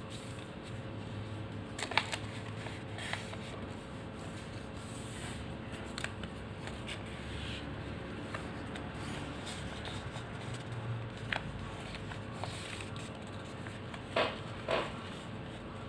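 Paper rustling and crackling as a strip of origami paper is folded and creased by hand, with a few scattered sharp crackles, the loudest two near the end, over a steady background hiss.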